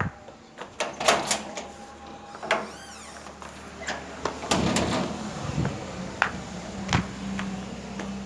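A series of irregular knocks and bangs, with a low steady hum coming in about halfway.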